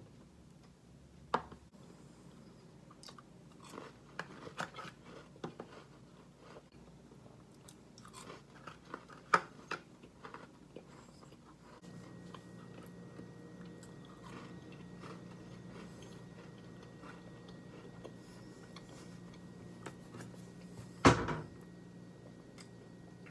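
Crunchy chewing of snacks, with scattered clicks of small plastic cups being handled and one loud knock about 21 seconds in. A steady low hum comes on about 12 seconds in.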